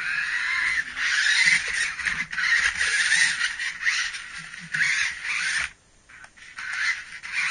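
Small electric motors and gears of battery-powered toy vehicles whirring, surging and dipping as they drive and collide, with a few knocks. The whirring drops out near the end.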